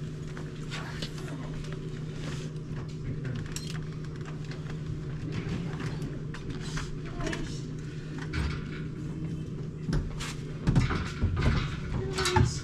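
A steady low machine hum, with scattered light clicks and knocks from handling, and louder knocks near the end.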